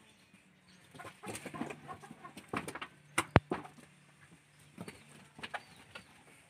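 Faint, scattered farm-animal sounds: short calls, chirps and small knocks from livestock, with one sharp click about three seconds in.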